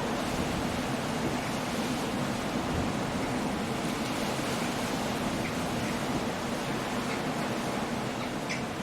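Steady, unbroken storm noise of surf and wind, with a few faint light ticks in the second half.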